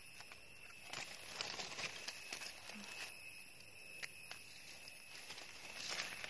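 Rustling and crackling of footsteps and hands moving through dry forest leaf litter while hunting for mushrooms, over a steady high-pitched whine.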